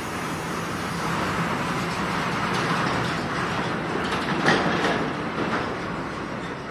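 Steady mechanical rumble and hiss of a fumigation sprayer spraying through a hose into a shipping container's door gap, with a brief louder clatter about four and a half seconds in.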